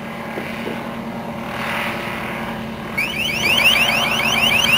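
Helicopter UAV's engine and rotor running steadily. About three seconds in, the LRAD 300X loudspeaker it carries starts a deterrent warning tone: quick rising chirps, about seven a second, repeated evenly.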